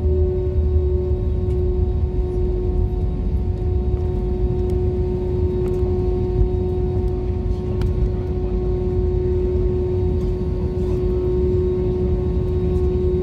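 Jet airliner cabin noise on the ground after landing: the engines run with a steady whine over a low rumble as the plane rolls along the runway.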